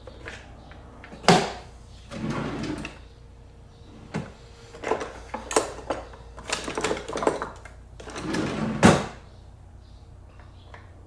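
Handling of a Stihl MS290 chainsaw's plastic and metal parts: sharp clicks and knocks with short rattling and scraping in between. The loudest knocks come about a second in and again near the end.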